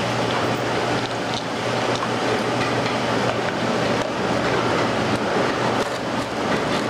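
Steady, loud machine noise: an even rush with a constant low hum under it.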